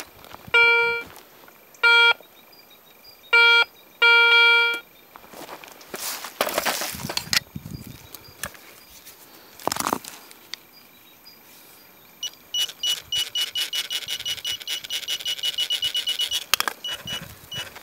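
Metal detector signalling targets in the soil: four short, loud, buzzy low beeps in the first five seconds, then from about twelve seconds in a higher-pitched beeping repeating about five times a second. Scuffing in the dirt in between.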